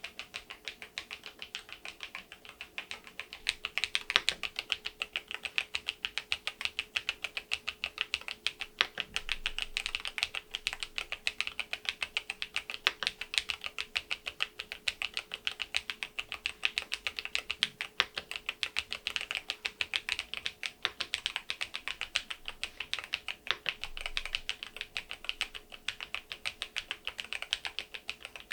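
Typing on a Keysme AIM04 HE keyboard with an aluminium case and magnetic Hall-effect switches, fitted with its stock keycaps: a continuous run of fast keystrokes, several clacks a second.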